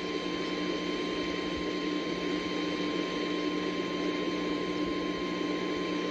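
NOAA Weather Radio 1050 Hz warning alarm tone: one steady, unbroken tone that signals an alert is about to be read, heard over radio static hiss.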